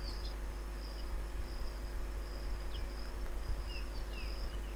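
Faint background insect chirping: a steady high trill broken by a few short chirps, over a low constant hum.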